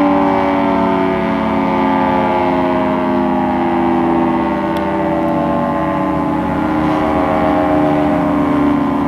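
Federal Signal 3T22 three-tone mechanical warning siren sounding its chord during an alert test, the pitch slowly sinking as it winds down.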